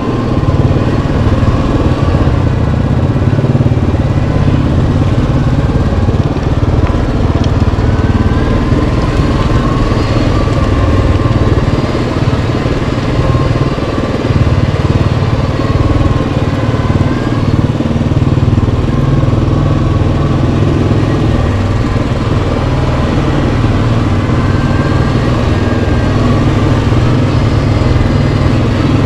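Yamaha Kodiak 700 ATV's single-cylinder four-stroke engine running loud and steady while riding, its pitch drifting slowly up and down with the throttle.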